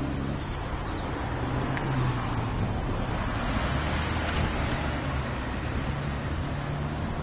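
Street traffic: a vehicle engine's low steady hum under a hiss of road noise, the hiss swelling for a moment about four seconds in.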